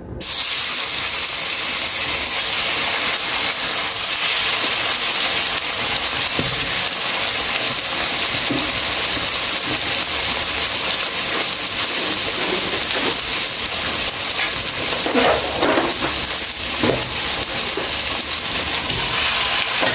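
Curry-seasoned cow foot pieces sizzling loudly in hot oil and burnt curry, the hiss starting suddenly as the meat goes into the pot and then holding steady, with a few faint knocks of pieces near the end.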